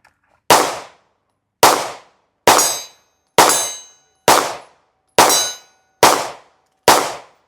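Eight gunshots fired at a steady pace of about one a second, a shooter emptying the magazine at the range. A faint ringing tone hangs on after several of the shots.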